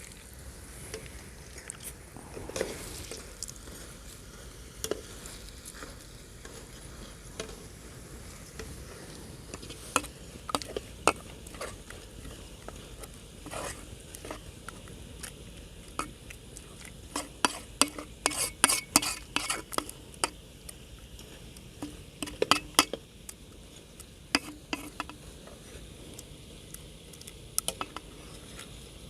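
Potato fries sizzling in hot oil, with a steady hiss. A utensil stirs them and clinks against the pan, with a quick run of clinks about two-thirds of the way through.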